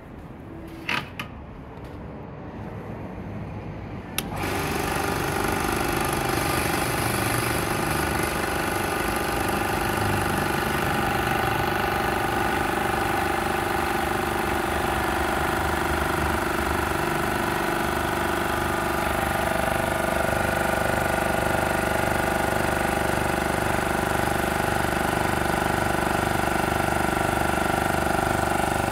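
MAX AK-7000AII air compressor starting up suddenly about four seconds in and then running steadily, pumping air. Two short clicks come about a second in, before it starts.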